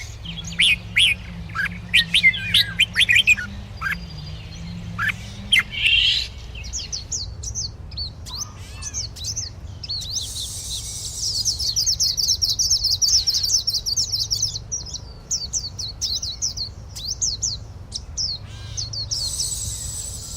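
Birds calling: a series of sharp, loud chirps for the first few seconds, then a fast, high twittering of many rapid notes.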